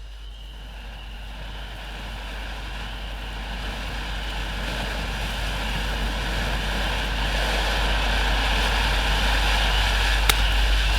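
500-gram Big Fireworks 'Big Crackle' firework fountain spraying with a steady rushing hiss that grows louder, with one sharp pop near the end.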